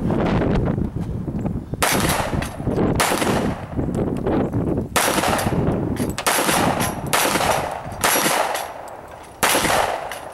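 Handgun firing a string of about seven shots, roughly one a second, at a steel dueling-tree plate rack, each crack followed by a short ring as the steel is struck.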